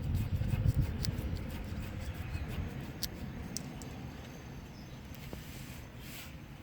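Ratchet wrench clicking as the brake caliper mounting bolts are tightened: a quick run of clicks in the first second, then a few single clicks, with a low rumble that fades.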